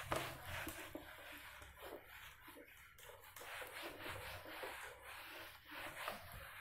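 Whiteboard duster wiping marker off a whiteboard in repeated faint rubbing strokes.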